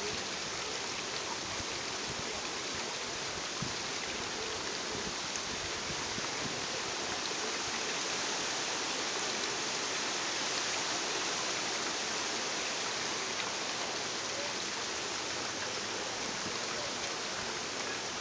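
A steady, even rushing hiss with no rhythm or pitch, like running water.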